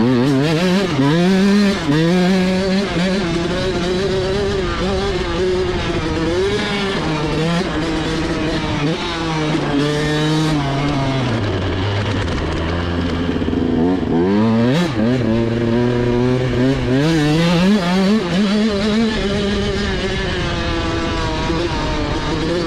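Husqvarna TC 85 single-cylinder two-stroke dirt bike engine being ridden, its revs climbing and falling with throttle and gear changes. About halfway through it drops to a low steady note for a couple of seconds, then revs up again.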